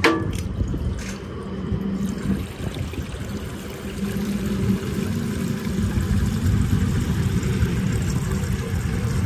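A click, then water from a pet drinking fountain starts about two seconds in and runs steadily, splashing into its stainless-steel bowl.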